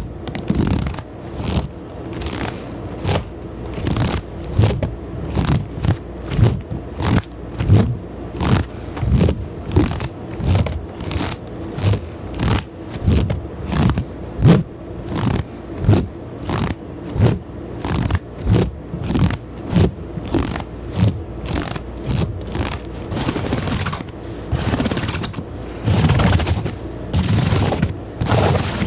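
ASMR triggers close to the microphone: quick scratching and tapping strokes, about two a second, each with a soft low thud, turning to denser continuous scraping near the end.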